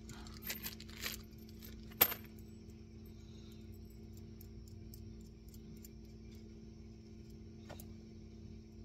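Small metal bolts clinking and a plastic hardware bag rustling as a bolt is picked out, with one sharp metallic click about two seconds in and another near the end, over a faint steady hum.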